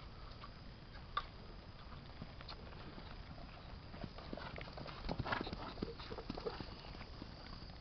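Hoofbeats of a ridden chestnut pinto gelding moving in the marcha picada gait over grass and bare earth, an irregular patter of hoof strikes. The hoofbeats grow louder and denser about four to six seconds in as the horse passes close. A single sharp click stands out about a second in.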